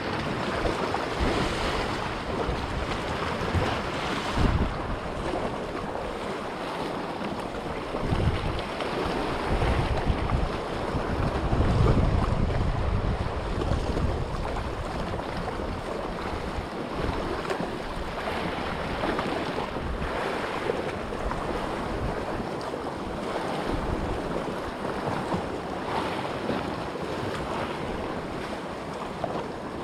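Wind buffeting the microphone over the steady wash of sea waves, with gusts rumbling louder now and then, most strongly about twelve seconds in.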